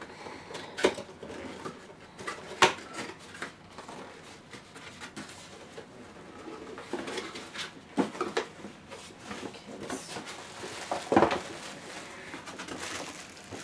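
Cardboard box being opened and handled: flaps pulled back and rubbing, with rustling and a few sharp knocks.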